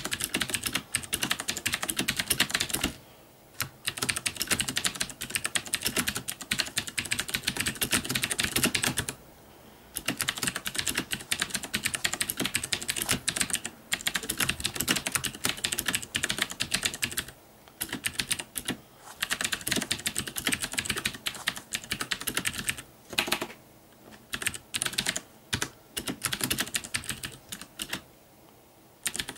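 Fast typing on a Das Keyboard Professional Model S mechanical keyboard with Cherry MX Blue switches: a dense run of loud, sharp key clicks, broken by several brief pauses. He is striking hard and bottoming out the keys.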